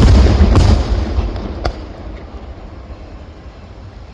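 Fireworks shells bursting with deep booms that echo and rumble, a second burst about half a second in and a sharp crack a little later. The rumble then fades away.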